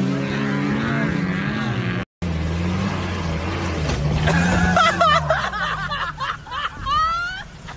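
An off-road vehicle's engine revving in mud, then after a cut a pickup truck's engine revving up and down as it sits nose-down in a mud hole. From about four seconds in, people shout excitedly over it.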